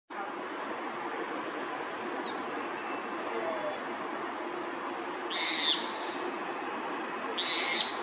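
Birds calling: a few short, high chirps that slide down in pitch, then two louder, harsher calls about two seconds apart, each lasting about half a second.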